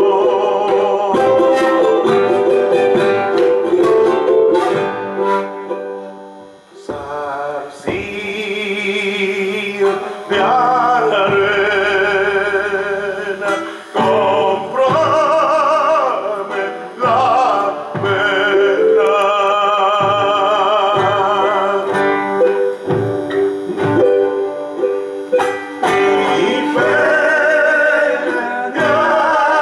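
Classical guitar strummed and plucked in a folk song. From about eight seconds in, a man sings with a wavering vibrato over the guitar.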